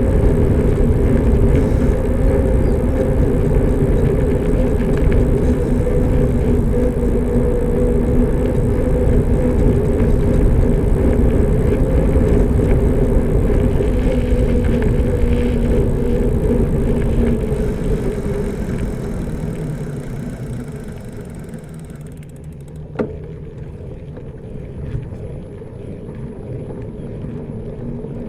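A motor vehicle's engine running close by with a steady hum and rumble, which fades away over a few seconds about two-thirds of the way through and leaves quieter road ambience. A single sharp click follows shortly after.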